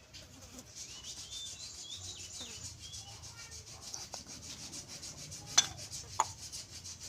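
Fast, even rubbing and scraping against wood. Two sharp clicks come about half a second apart near the end.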